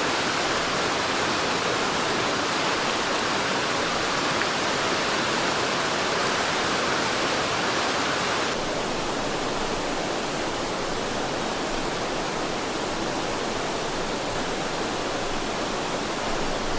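A fast mountain river rushing steadily. About halfway through the sound shifts abruptly to a slightly quieter, duller rush.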